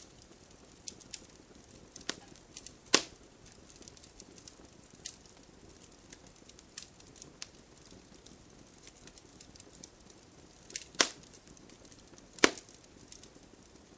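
Wood bonfire crackling, with irregular sharp pops and snaps. The loudest pops come about 3 seconds in and twice near the end. A faint steady hiss of rain runs underneath.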